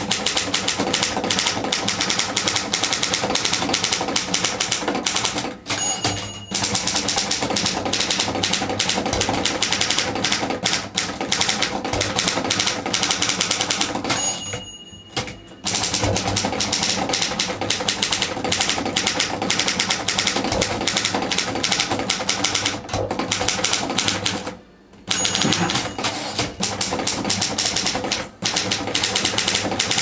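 A 1964 Speedwriter Cavalier manual typewriter being typed on as fast as possible: a rapid, dense run of clacking keystrokes. Three times a short bell rings and the keystrokes stop briefly, as the margin bell signals the end of a line.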